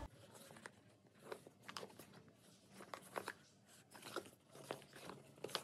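Faint, irregular clicks and crinkles of a small cardboard earbuds box being handled and turned over in the hands.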